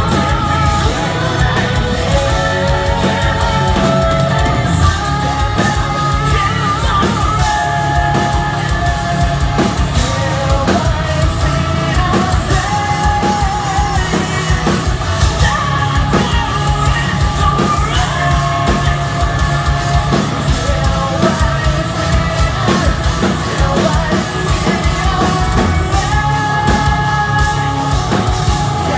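A progressive metal band playing live at full volume: sung and shouted vocals over heavy distorted guitars and rapid, dense drumming, heard from the audience floor.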